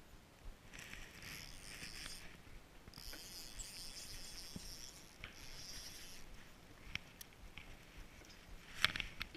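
Spinning reel being cranked: a faint whirring in three spells of a second or two each, followed by a few sharp clicks near the end.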